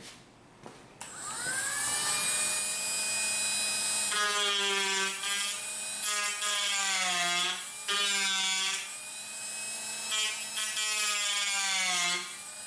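Dremel rotary tool switched on about a second in, spinning up with a rising whine, then running steadily. From about four seconds it is pressed into the wooden rifle stock four times, its pitch dipping under the load each time and recovering as it grinds the fore-end nose to an angle for the nose cap.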